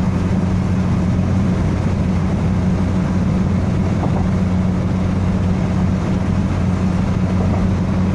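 A car driving at a steady speed, heard inside the cabin: a constant low engine drone with road noise, without rises or falls.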